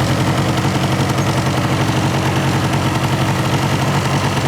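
Small engine running steadily at low speed, a constant low hum with a fast, even pulse.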